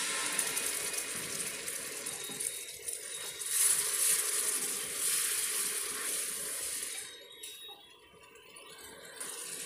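Tomato-onion masala sizzling hard in hot oil in an open pressure cooker as it is fried and stirred with a wooden spatula, a little water having just gone in. The hiss dies down about seven seconds in.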